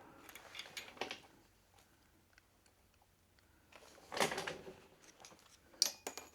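Light clicks and scraping of small metal parts being handled and fitted, as a washer and small spring go onto the cam-belt pulley shaft, with a sharp metallic click and brief ring near the end.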